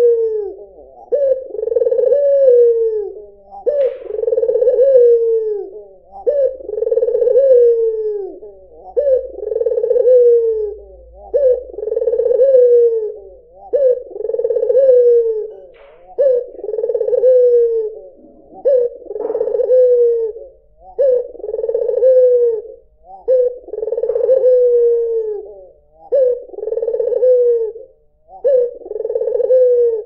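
White (albino) Barbary dove cooing over and over: a low coo that rises briefly and then slides down, repeated about every two seconds.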